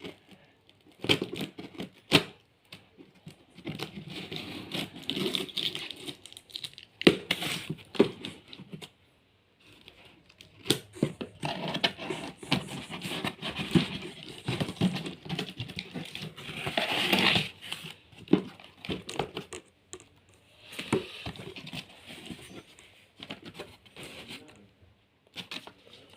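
Cardboard box and packing material being torn open and handled, irregular crinkling, tearing and rustling with scattered sharp clicks and knocks.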